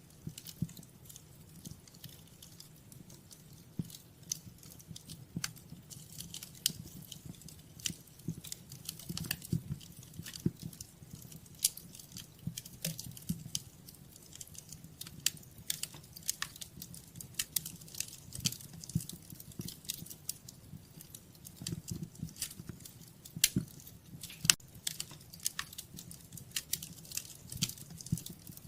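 Wood fire burning in a fireplace: irregular crackles and snaps over a low, steady rumble of the flames, with a few louder pops near the end.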